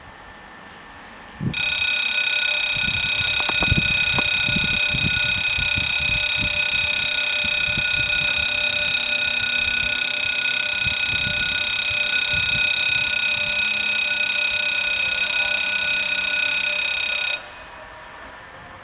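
Level crossing's electronic warning bells ringing with a loud, continuous, steady tone, the signal that a train is approaching. They start about a second and a half in and cut off suddenly near the end, once the barriers are down.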